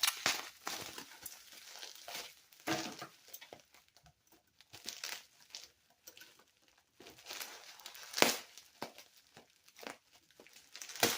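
Toy packaging being handled and unwrapped: irregular crinkling and rustling with short pauses, and a couple of sharp snaps, one about eight seconds in and another near the end.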